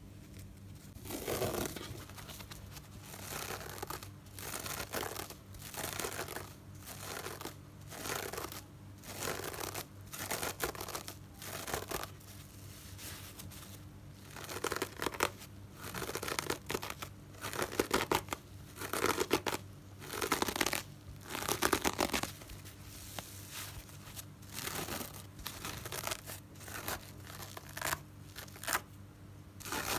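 Hands squeezing and scratching a dry cellulose car sponge with an orange scrubber layer, in repeated short scratchy bursts about a second apart, heaviest in the middle stretch.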